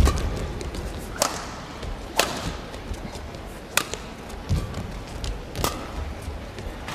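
Badminton rackets hitting a shuttlecock back and forth in a rally: five sharp cracks one to two seconds apart, over a low hall rumble.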